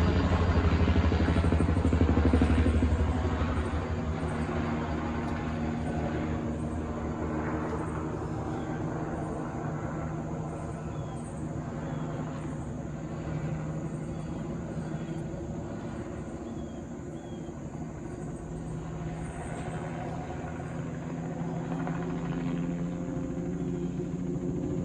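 An engine running steadily, loudest in the first few seconds, easing down after about three seconds and building again toward the end.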